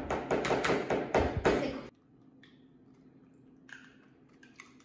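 Eggs being knocked against the rim of a mixing bowl to crack them: a quick run of sharp taps, about four a second, that stops abruptly about two seconds in. After that there is only a low hum and a few faint clicks.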